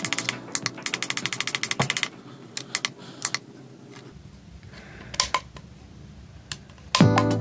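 Rapid, even clicking, about ten clicks a second, from a small digital desk clock as its time is set and the digits run forward; after about two seconds it stops and only a few single clicks follow. Music comes in near the end.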